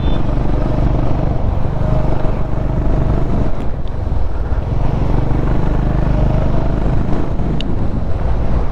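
Motorcycle engine running steadily while riding at road speed, with wind buffeting the microphone.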